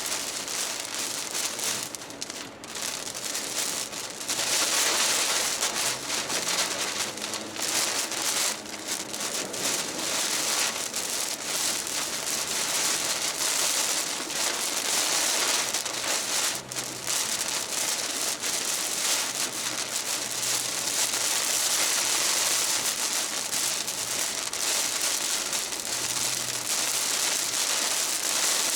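Heavy thunderstorm rain pouring down in a dense, steady hiss that swells and eases.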